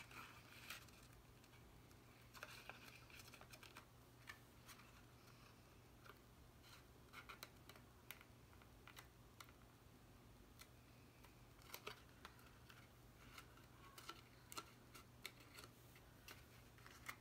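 Faint scattered clicks, taps and light scrapes of cardstock pieces being handled and pressed together while gluing, over a low steady hum.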